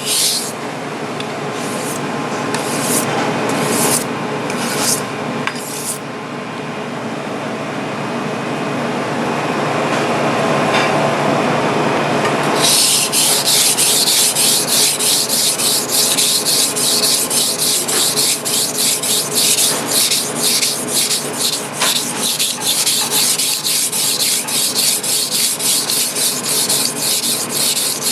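Single-bevel Masahiro kitchen knife being stroked across a whetstone, a gritty rubbing scrape. The strokes come about a second apart at first, give way to a smoother continuous rub for several seconds, and then turn into quick, even strokes of about three a second from about halfway through.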